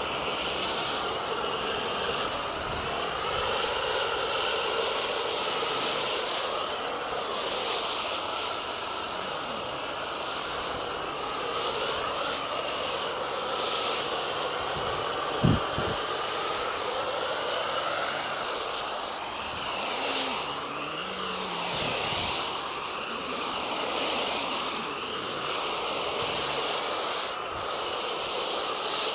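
Pressure washer spraying water at a car wheel: a steady hiss that swells and dips as the jet moves over the surface.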